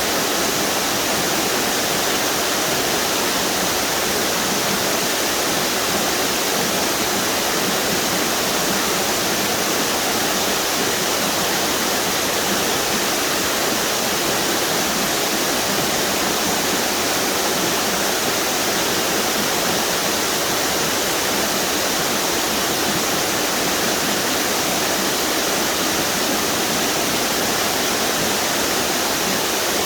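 Waterfalls on the Duck River, a steady, unbroken rush of falling water.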